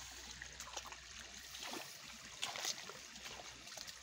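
Faint trickling of shallow paddy water, with a few small splashes about two seconds in.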